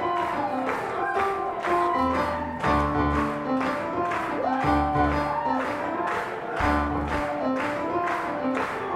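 Roland RD-700 stage piano played live: chords and bass notes under a steady, even beat.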